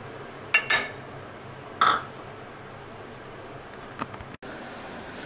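Metal spoon clinking against a pot while stirring a simmering sauce: a quick double knock about half a second in and a single knock near the two-second mark, with a fainter tap later.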